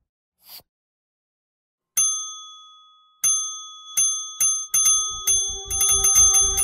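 Bright bell-like ding sound effects: one ding rings out about two seconds in, then more come faster and faster until they pile up near the end, with low thumps beneath them from about the middle on.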